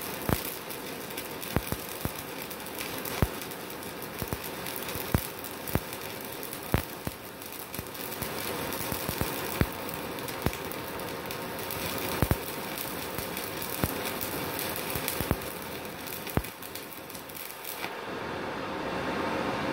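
Stick (MMA) welding arc crackling and sputtering, with sharp pops every second or so, from a MultiPro IGBT inverter welder set to 120 amps. The arc stops about two seconds before the end and a steadier hum takes over.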